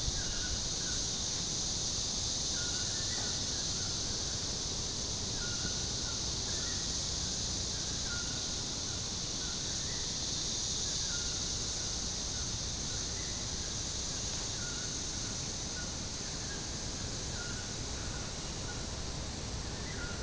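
Steady high-pitched insect drone in tropical forest, with a bird repeating short calls every second or two.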